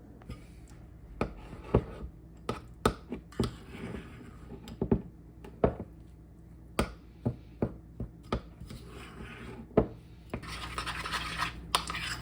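Spoon mixing protein powder into thick yogurt in a bowl: irregular knocks and scrapes of the spoon against the bowl, then steady rapid scraping stirring from near the end.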